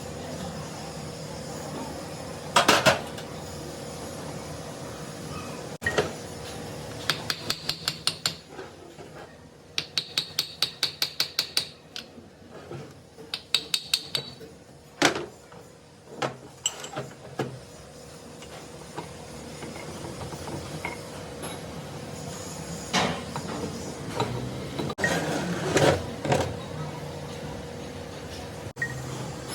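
Hammer striking metal: a few single knocks, and three quick runs of rapid, evenly spaced taps that ring with a high metallic tone.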